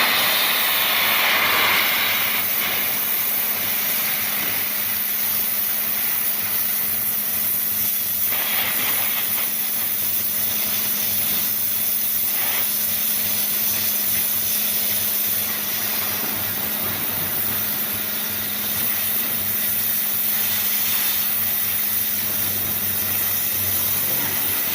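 Homemade high-pressure washer, a pump driven by a used electric motor, running steadily: a loud hiss of water spraying under high pressure over a constant motor hum.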